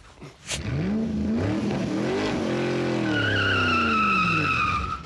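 An engine revving, rising in pitch and then falling away, with a high squeal like tyre squeal joining about three seconds in; it cuts off suddenly at the end.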